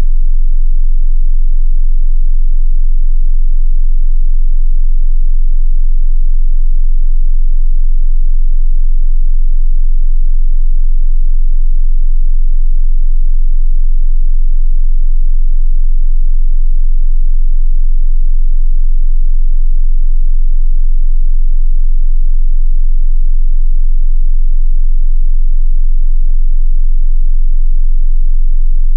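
A 22 Hz sine wave: one steady, unchanging sub-bass test tone for subwoofers, played loud.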